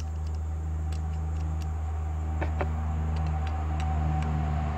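A steady low hum from an unseen machine, with a few light clicks as hands handle the motor's cable clamps and terminals.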